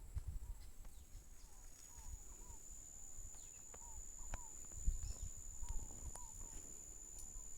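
Outdoor countryside ambience. A steady high-pitched insect drone runs underneath short bird chirps that come in quick pairs, along with a few higher descending calls. An irregular low rumble, loudest about five seconds in, sits beneath it all.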